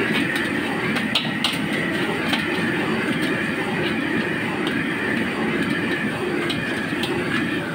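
Stir-frying in a wok over a gas burner: a steady burner-and-sizzle noise, with the metal spatula clinking and scraping against the wok now and then.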